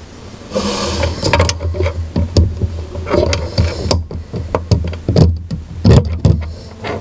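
Irregular clicks, knocks and scraping from hands handling and fitting computer parts, over a low rumble.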